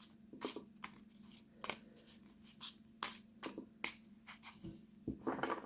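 Stiff oracle cards being flicked through and handled, making short, sharp card snaps and slides at an irregular pace of roughly two a second.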